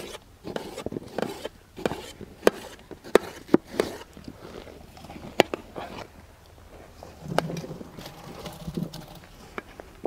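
Knife cutting watermelon on a stainless steel plate: irregular sharp taps as the blade strikes the metal, the loudest a few seconds in.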